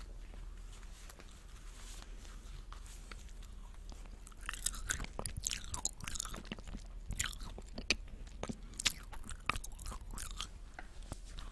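Close-miked eating of cotton candy: soft, quiet chewing, then from about four and a half seconds a busy run of sharp crackles and clicks.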